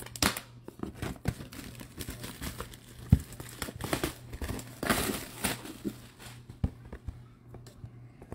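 Packaging being handled and opened: irregular crinkling and rustling with scattered clicks, a sharp knock about three seconds in and a longer rustle around five seconds.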